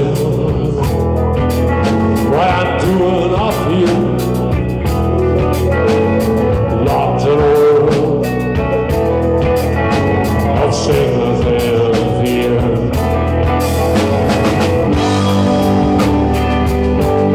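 Live rock band playing: electric guitars, bass guitar and drum kit, loud and steady.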